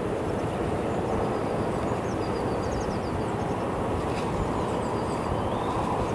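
Steady outdoor rumble of distant vehicles, with small birds chirping faintly over it.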